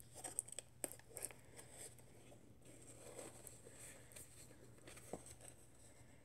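Faint rustling and a few small clicks as hands handle a new Reebok DMX Run 10 sneaker over its tissue-lined box. Most of the clicks come in the first two seconds, with one more about five seconds in.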